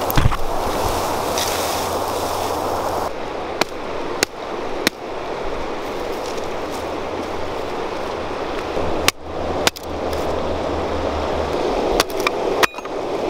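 Steady rush of a fast-flowing river with wind rumbling on the microphone, broken by several sharp knocks of a hatchet chopping branches.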